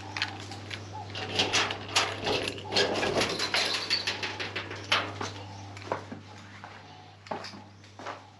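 Footsteps and a run of clicks, knocks and rattles as an exterior workshop door is unlatched and swung open, growing sparser in the second half.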